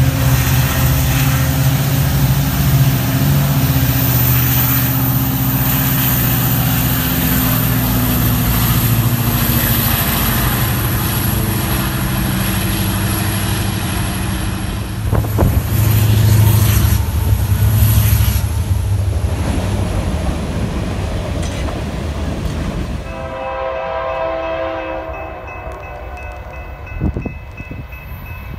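BNSF diesel locomotive passing close by with a steady engine rumble, followed by freight cars, tank cars among them, rolling past with wheel and rail noise. About three-quarters of the way through, the sound changes to an approaching train's air horn blowing a chord of several tones in the distance.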